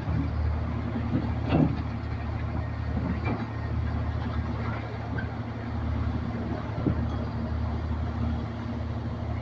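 Diesel engine of a CAT 336 hydraulic excavator running steadily under work, with a few short knocks about one and a half, three and seven seconds in.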